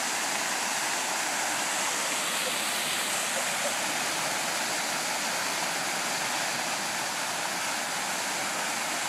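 Park fountain's many water jets splashing back into the basin, a steady rushing sound.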